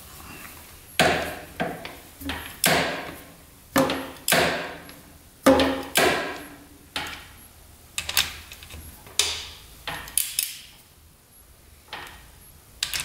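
Metal hand tools knocking and clanking on an engine as the cylinder head bolts are turned a quarter turn at a time. There are about fifteen sharp metallic knocks at irregular intervals, each with a short ringing tail.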